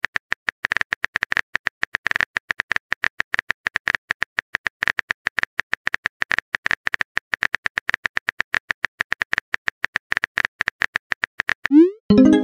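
Rapid clicks of a texting app's keyboard typing sound effect, about eight to ten taps a second. Near the end a short rising tone leads into a chime as the typed message pops up.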